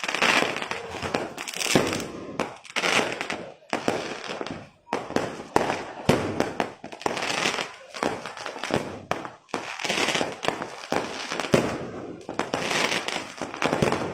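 Fireworks and firecrackers going off without a break: a dense run of bangs and crackling, with a few sharper, louder bangs standing out.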